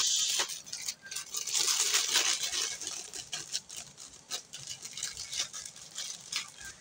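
Scratchy rustling with small clicks from hands handling the wet fishing-bait mixture and its container, loudest near the start and again about two seconds in, then fading.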